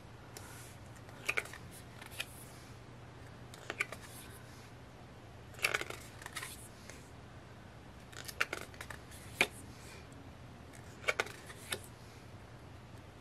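Stiff printed cardstock cards being handled and turned by hand: a dozen or so short, crisp paper snaps and rustles at irregular intervals, some in quick pairs.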